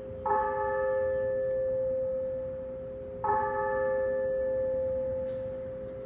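Tower bell tolling, struck twice about three seconds apart on the same note. Each stroke rings on into the next.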